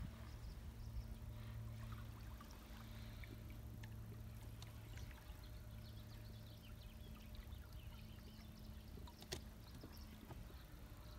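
Boat motor idling, a faint steady low hum, with scattered light clicks and one sharper click about nine seconds in.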